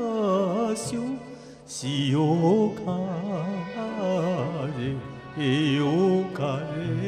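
Singing of an old Japanese popular song with wide vibrato over an instrumental backing track.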